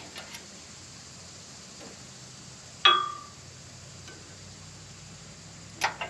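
A single sharp metallic clink that rings briefly, about three seconds in: a hex key striking the steel blade-guide roller bracket of a Wood-Mizer LT15 sawmill during a height adjustment. A few faint ticks of the key on the metal come before and after it.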